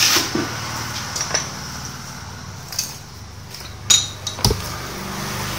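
A few sharp metal clinks and knocks as tools and parts of a small stationary engine's flywheel are handled, over a steady low hum.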